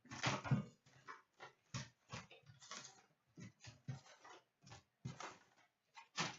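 Crinkling and rustling of plastic and foil packaging being handled and torn open, in quick irregular crackles.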